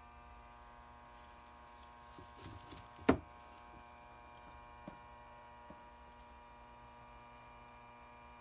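Steady electrical hum with a single sharp knock about three seconds in, a little rustling just before it and two faint clicks later.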